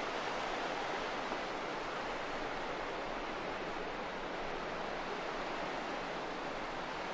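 Steady rushing of sea surf washing along the shore, an even noise with no distinct breaks.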